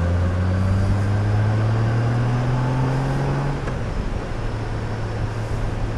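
Honda Gold Wing motorcycle engine pulling under throttle, its note rising steadily as the bike speeds up, then dropping away about three and a half seconds in. A steady rush of road noise runs underneath.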